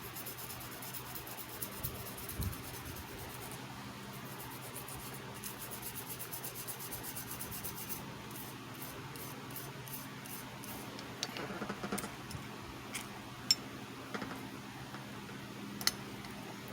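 Rubbing or scraping on a hard surface: a steady scratchy rubbing for several seconds, then a quick series of short strokes, then a few sharp clicks and taps, the loudest near the end.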